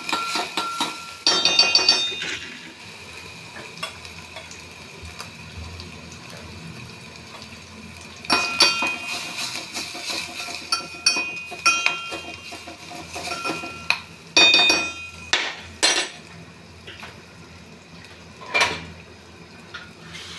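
Kitchen utensils and dishes clinking and knocking in several bursts, with short ringing tones after the strikes.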